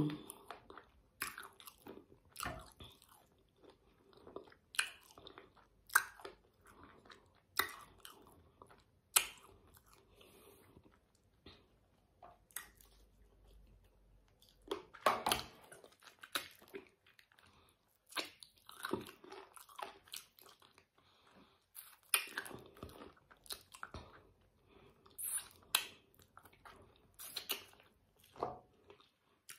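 Chewing and biting on spicy fried chicken feet: irregular short crunches and mouth clicks every second or two, with quiet gaps between.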